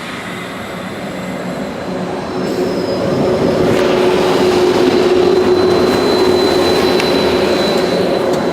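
Class 90 electric locomotive-hauled passenger train running into the platform, growing louder over the first few seconds as it passes close, with a steady whine over the rumble of the wheels.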